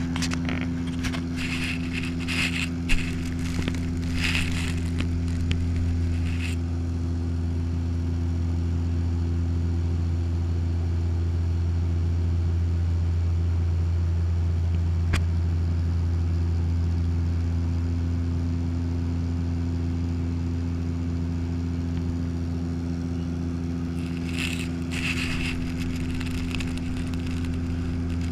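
Steady drone of a turboprop airliner's propellers and engines heard inside the cabin: a constant low hum with several steady tones above it. Bursts of scraping and clicking come over the first few seconds and again a few seconds before the end.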